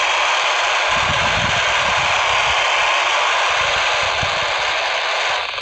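Steady loud hiss of FM static from a Baofeng handheld radio tuned to 145.800 MHz with no station coming through: the ISS downlink has faded out. About five seconds in, the hiss dips and breaks up unevenly.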